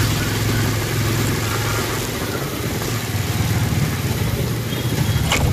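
Motorcycle engine running steadily under way, mixed with steady wind rush on a phone microphone mounted on the rider's helmet.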